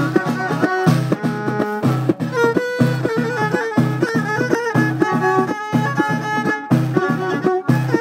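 A violin played upright on the knee, bowing a lively ornamented melody, with hand-beaten frame drums keeping a steady rhythm: Moroccan Amazigh folk music.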